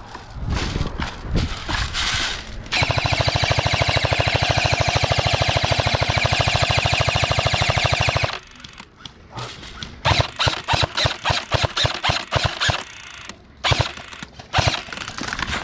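Airsoft gun firing on full auto: one long, rapid, even burst lasting about five seconds, starting near three seconds in. It is followed by a run of separate, irregular shots.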